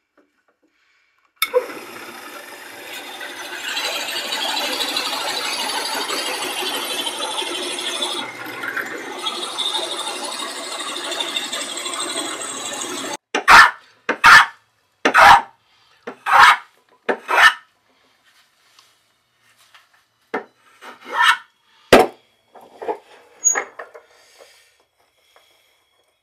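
Hand tool working wood: a continuous rasping scrape for about twelve seconds that cuts off suddenly, then separate short strokes about one a second, a pause, and a second group of strokes near the end.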